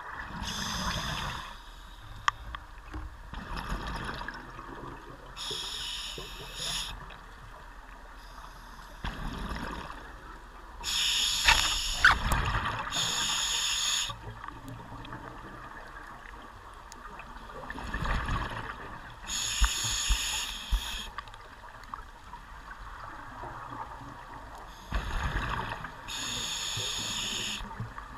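Scuba diver breathing through a regulator underwater: a hiss from the regulator on each inhale, then a bubbling gurgle as the exhaled air escapes, in a slow regular cycle of about five breaths.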